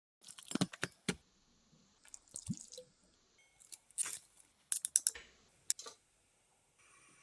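Kitchen food-preparation noises: irregular taps, clicks and knocks with wet squishing sounds.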